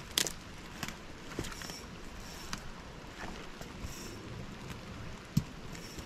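Footsteps squelching and knocking over a muddy, sloppy riverbank, over a steady rush of water, with one sharp knock about five seconds in.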